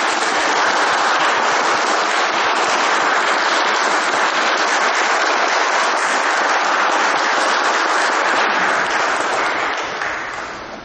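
Congregation applauding, a steady wash of many hands clapping that dies away near the end.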